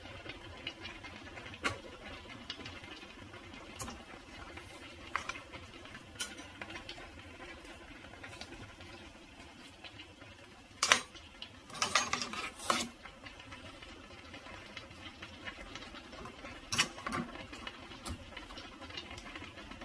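Thick cream sauce simmering in a frying pan, with scattered pops of bursting bubbles over a low steady hiss. A brief cluster of louder clicks and knocks comes about eleven to thirteen seconds in.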